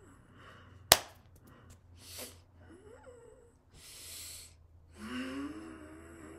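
A man's wordless vocal sounds: breathy gasps and exhalations, then a wavering hummed tone from about five seconds in. A single sharp smack about a second in is the loudest sound.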